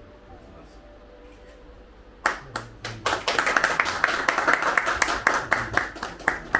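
Hand clapping from a small group: a few claps about two seconds in, then a short round of applause that ends near the close.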